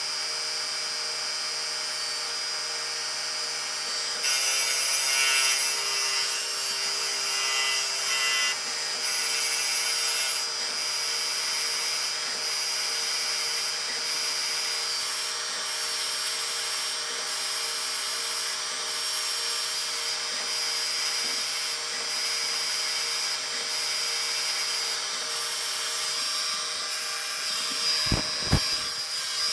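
CNC lathe turning a cast aluminium part under flood coolant: the spindle and drives give a steady whine, with the hiss of the tool cutting and coolant spraying. The cut is louder and rougher from about four to nine seconds in, and the hiss then breaks briefly about every two seconds between passes. A few short thumps come near the end.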